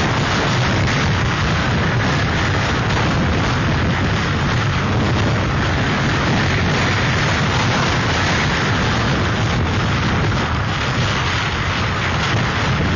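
Hurricane-force wind blowing hard and buffeting the microphone in a loud, steady rush without let-up.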